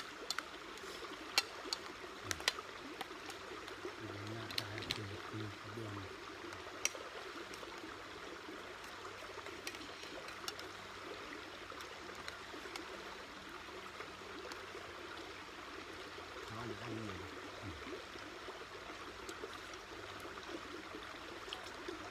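A stream running steadily, with a few sharp clicks of metal spoons against stainless steel bowls in the first seven seconds and a faint low voice murmuring twice.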